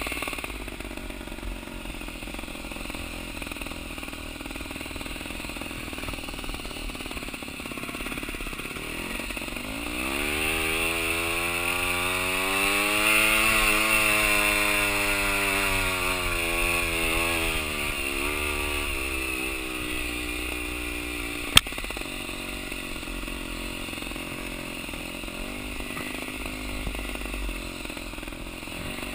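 Trials motorcycle engine running on a steep descent: the revs climb from about a third of the way in, hold for a few seconds, then fall away again. A single sharp knock comes a little past two-thirds in.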